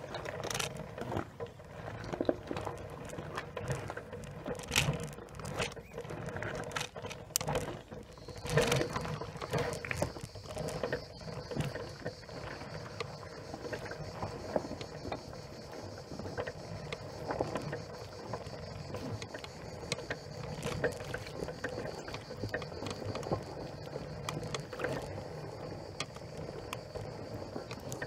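PathWay ES6 S off-road self-balancing electric scooter running through a shallow stony river: a steady motor whine, with many knocks and clatters over the first ten seconds or so. A second, higher whine joins about eight seconds in and holds.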